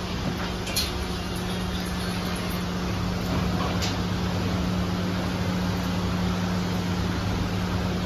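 Steady machine hum with a low drone and a second tone above it, over an even background noise, with a couple of faint clicks.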